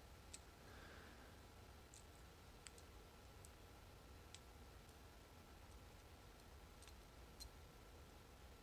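Near silence with faint, scattered light clicks, irregularly spaced, of a lock pick and tension wrench working the pin tumblers of an old Corbin Master Ring padlock while picking it.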